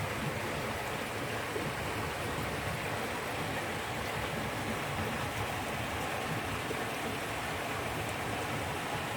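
Steady rush of water flowing in a wadi stream.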